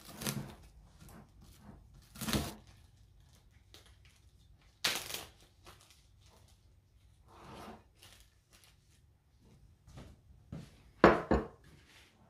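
Plastic cling wrap and wrapper packaging being handled: a series of short rustles and crinkles with a few light knocks, the loudest two close together near the end.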